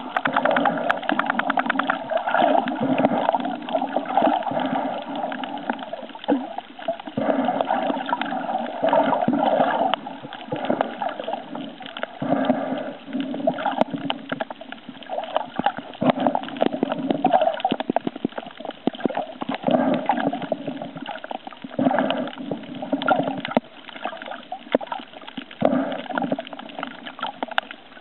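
Water sloshing and gurgling around a camera held underwater while snorkelling, swelling and fading irregularly.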